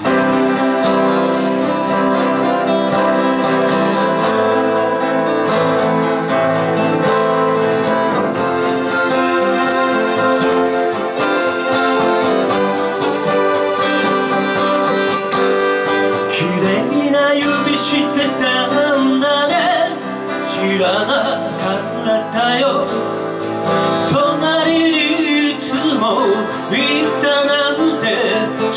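Live acoustic band with guitar playing a song's slow intro, then a singer comes in about halfway through.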